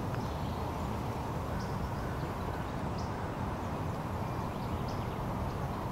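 Steady outdoor background noise: a low, even rumble with no clear events, with a few faint short high sounds.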